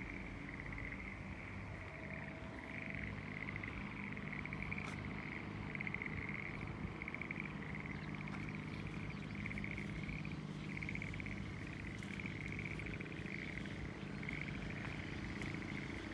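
A chorus of frogs calling from flooded rice paddies: many overlapping pulsed trills, each about a second long, repeating one after another without a break.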